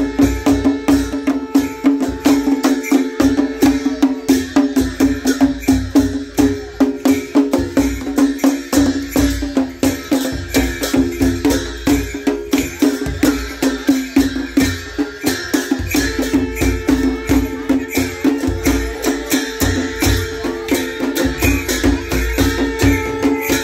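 Traditional folk ritual music: a drum beaten with a curved stick and a brass plate struck in a fast, steady rhythm, over a held drone.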